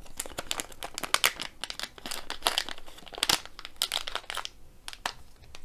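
Holographic foil-and-plastic resealable pouch crinkling as it is handled and opened by hand: a quick run of sharp crackles that thins out near the end.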